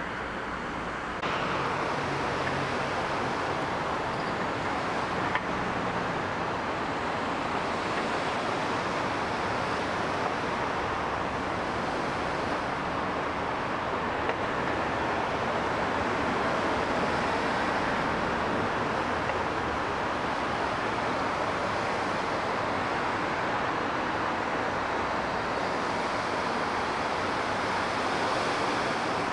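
Steady outdoor background noise with no distinct events, which gets louder about a second in.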